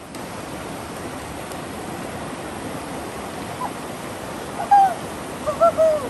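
Fast mountain creek rushing over boulders, a steady rush of water. Near the end, a few short, loud, high-pitched cries cut in over it.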